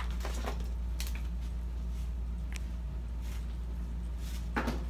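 Steady low hum of room tone with a few soft rustles and knocks from a clear vinyl tote bag being set down and handled. The loudest knock comes near the end.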